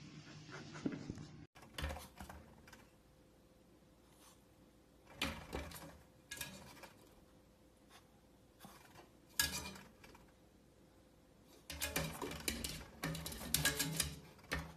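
Dog's claws scratching and clinking against a glass door and its metal frame, in short bursts of clatter with a longer run near the end.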